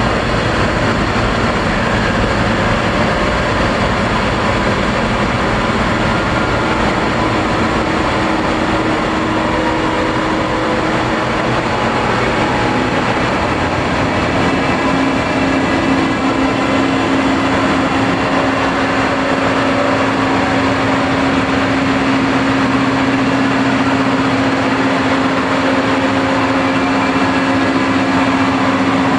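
Dark ambient noise music: a loud, unbroken wall of rumbling noise with held drone tones in it. A stronger low drone tone comes in a little before halfway and holds to the end.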